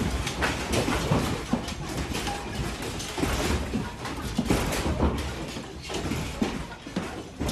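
TV studio ceiling lighting rig and hanging fixtures rattling and clattering without a break as the building shakes in an earthquake.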